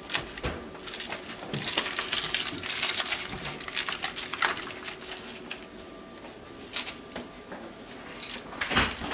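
Boxer puppies scuffling and wrestling over a plush toy: a rustling, clicking scramble of paws and claws, busiest in the first half, with a thump near the end.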